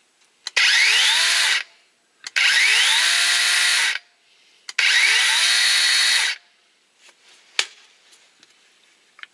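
DeWalt 20V XR brushless 12-inch cordless chainsaw run three times with no load, each run a second or so long: the motor and chain whine up to speed, hold steady, then stop, with a short click just before each run. It is a test run after the bar and chain were refitted and tensioned.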